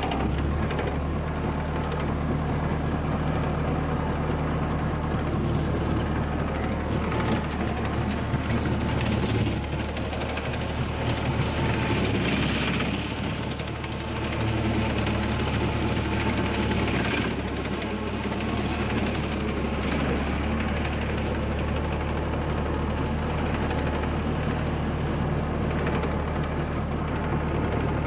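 Deutz tractor's diesel engine running steadily at working speed, with a rear-mounted rotary mower driven off the power take-off. A few brief swells of rushing noise come up in the middle.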